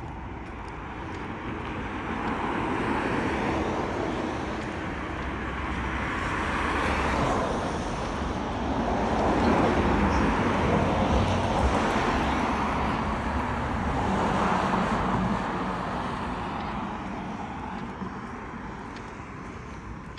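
Passing motor traffic: a rushing noise that swells and fades several times as vehicles go by, loudest about halfway through, over a steady low rumble.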